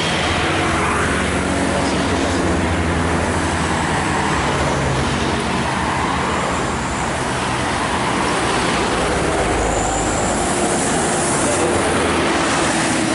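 Road traffic on a hill climb: a coach bus's diesel engine pulling uphill among trucks, cars and motorbikes, with the bus passing close by near the end.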